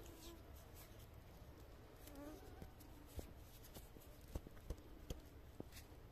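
Near silence with a flying insect buzzing past briefly, once at the start and again about two seconds in. A few faint clicks follow in the second half.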